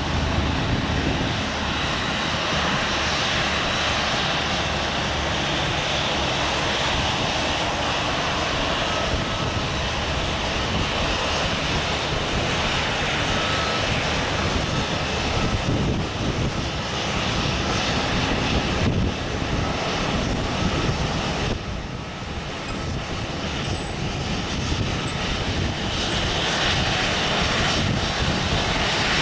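CFM56 turbofan engines of a taxiing Boeing 737 running at low taxi power: a steady jet roar with a faint whine.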